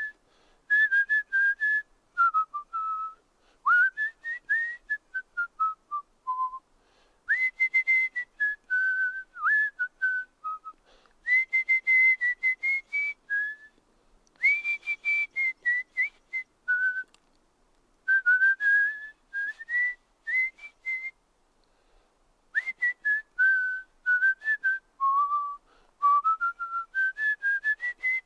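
A person whistling through the lips: one clear pure tone in runs of short notes that slide and step up and down in pitch, grouped into phrases with brief pauses between them.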